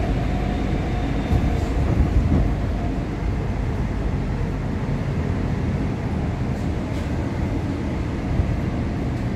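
Incheon Subway Line 1 train running between stations, heard from inside the passenger car: a steady low rumble of wheels on track, with a few louder knocks between about one and two and a half seconds in. A faint thin tone dies away during the first couple of seconds.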